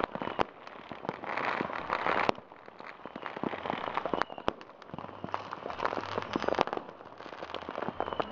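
Fireworks and firecrackers going off: many overlapping pops and sharp bangs over a dense crackle, heaviest about a second in and again around five seconds in.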